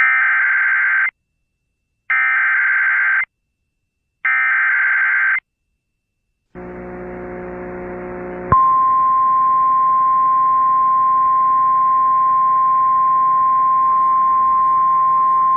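Emergency Alert System header: three identical bursts of warbling digital data tones, each about a second long, followed by a brief hiss and hum. A single steady attention tone then starts about eight and a half seconds in and holds, announcing a National Weather Service warning.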